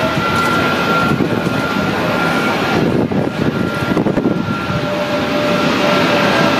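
Jet engines of an Airbus A320neo airliner at taxi power: a steady rushing noise with a steady high whine over it, heard through a window pane.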